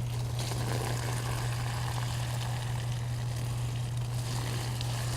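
Water from a tipped bird bath pouring and splashing out, a steady rushing wash, over a constant low mechanical hum.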